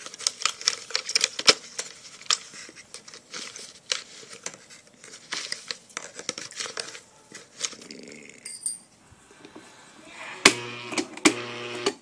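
Crackling, rustling clicks as a thin rod pokes and stirs shredded cardboard inside the plastic jar of a homemade blender. About ten and a half seconds in, a steady electric hum starts with a few sharp knocks and runs for over a second.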